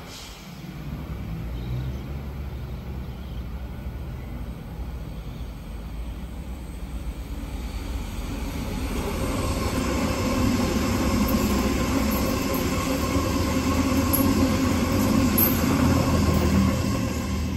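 Sydney Trains Waratah Series 2 electric multiple unit approaching and passing on the suburban line. Its rumble and wheel noise grow steadily louder from about halfway through, with a steady electric whine over the top.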